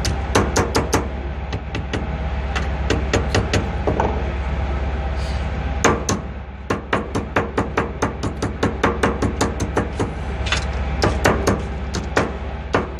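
Hand hammer beating a flat strip against a metal plate in quick runs of blows, about three to four a second, with a pause near the middle. A steady low hum runs underneath.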